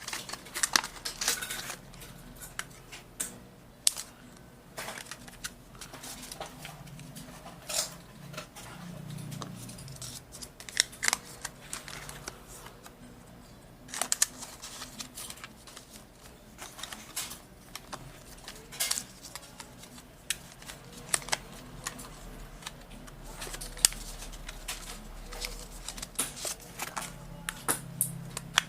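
Irregular sharp clicks, taps and small plastic rattles of hands handling small laptop and RAM parts and their packaging.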